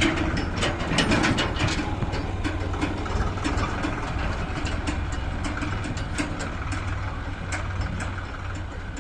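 Heavy diesel engine running steadily at idle, with sharp clacks and rattles of stone and metal, thickest in the first couple of seconds and then only now and then.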